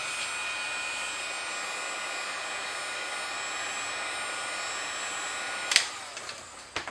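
Handheld hot-air blower running steadily with a faint whine, heating the adhesive on a velcro strip. It is switched off with a sharp click near the end and its sound dies away, followed by a couple of light clicks.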